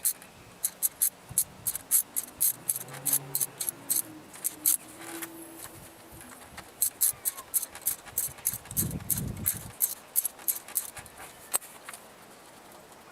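Socket ratchet clicking in rapid runs of strokes while loosening the 10 mm nuts that hold the clutch fan, with a short pause about halfway through.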